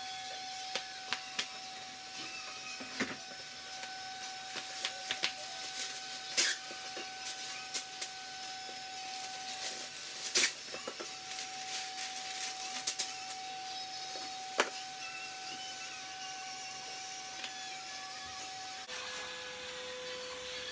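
Baking paper rustling and crinkling as it is pulled off the roll and laid onto metal baking trays, with scattered clicks and taps. Under it a steady high hum runs on, dropping to a lower tone near the end.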